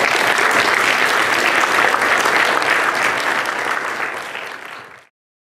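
Audience applauding: dense, steady clapping that thins out near the end and cuts off abruptly about five seconds in.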